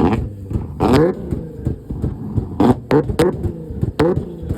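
A car engine revved in about five short, sharp blips, its exhaust popping and crackling on each rev as it shoots flames, over a low idle.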